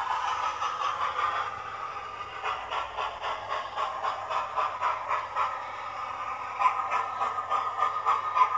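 Hornby OO-gauge model trains running on a layout: wheels clattering along the track, with the Twin Track Sound decoder of the P2 2-8-2 'Cock of the North' locomotive playing a steady run of steam chuffs and hiss.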